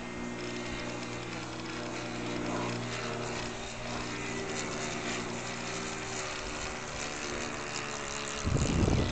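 Engine of a radio-controlled model Cessna 177 Cardinal droning steadily as it flies overhead. Near the end, wind buffets the microphone in a loud low rumble.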